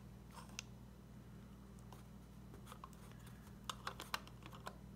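Faint, scattered light clicks of small airsoft gearbox parts being handled, with a short run of sharper clicks about four seconds in, over a steady low hum.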